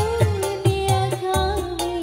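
Live Indonesian religious pop song through a PA: a woman sings a held, wavering melody over keyboard and hand drums. The drum strokes are deep and drop in pitch, a few a second.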